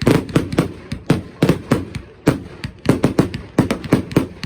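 Fireworks display going off: a dense, irregular string of sharp bangs, about three to four a second, each with a short echo.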